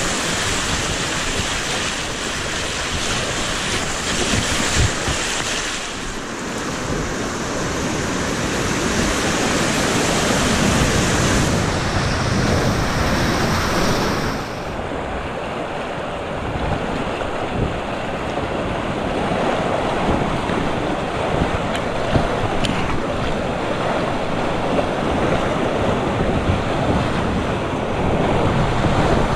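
Whitewater rapids rushing and splashing around a kayak running through them. The high hiss thins out about halfway through.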